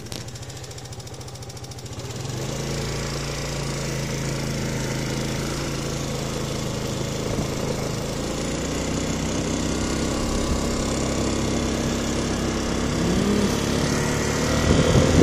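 Kymco B&W 250 scooter engine running steadily while riding along, getting louder about two seconds in, with a short rise in pitch near the end.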